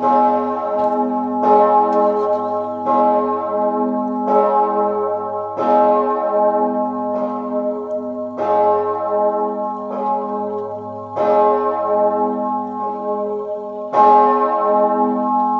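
The 4,820 kg great bell of Niederalteich abbey church, Mauritius, cast by Perner of Passau in 2003 and tuned to A-flat, swinging alone and tolled for the death-hour ringing (Sterbestundenläuten). Its clapper strikes about every second and a half, each stroke ringing on into the next over a steady low hum.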